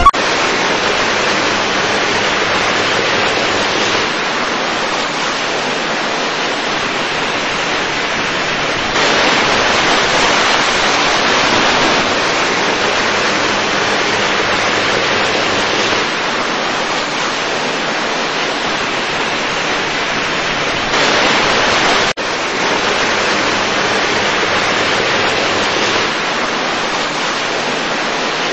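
Steady rushing noise that steps louder or quieter at several abrupt cuts, with a brief dropout about three-quarters of the way through.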